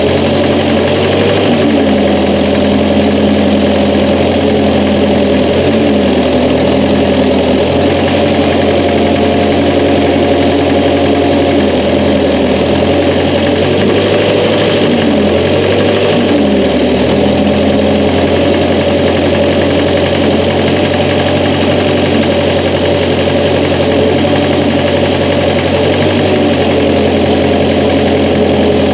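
Massey Ferguson 202's Continental Z134 four-cylinder engine running steadily under the backhoe, its pitch dipping and recovering a few times as it comes under load.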